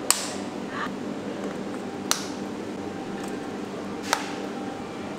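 Three sharp clicks about two seconds apart as lipstick cases are capped and set down on a hard counter, over a steady low room hum.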